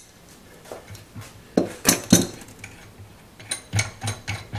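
Steel wrench, nut and washers on a threaded rod clinking as they are handled. There are a few sharp metallic clinks about two seconds in, then a quicker run of lighter ticks near the end.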